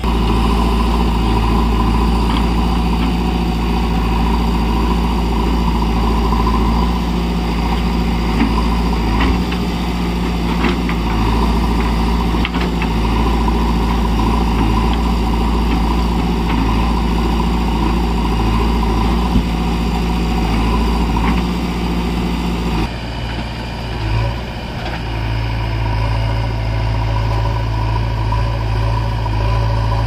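JCB backhoe loader's diesel engine running steadily as the machine digs and loads earth, with a few sharp knocks. The sound changes abruptly about three-quarters of the way through.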